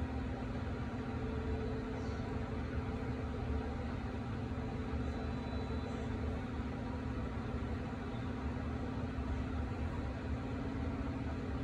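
A steady low hum over an even hiss of background noise.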